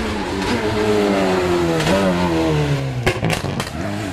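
Citroën DS3 rally car's engine coming off the throttle, its note falling steadily as it slows into a corner. A few sharp cracks come about three seconds in, then the engine note starts to rise again as it powers out.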